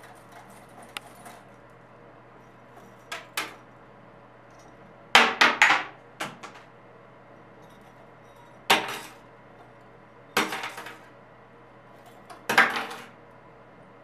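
Sharp clinking and clattering knocks of small hard objects, in short clusters every two seconds or so.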